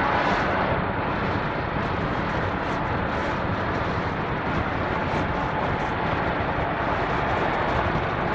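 Steady road and engine noise inside the cab of a 2014 Ford Econoline E-250 van cruising at highway speed.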